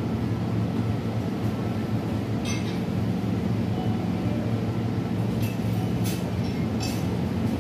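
Steady low hum of shop background machinery, with a few short, light clicks or clinks about two and a half seconds in and again several times near the end.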